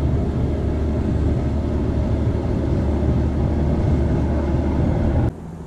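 Diesel engine of a fishing boat with outrigger booms running as it motors across the bay: a steady low rumble. It cuts off suddenly near the end.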